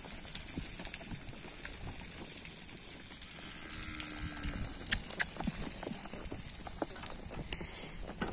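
Hooves of a horse and a small group of calves walking over a dirt corral: scattered soft footfalls and knocks, with two sharper knocks about five seconds in. A faint low animal call is held for a second or so around four seconds in.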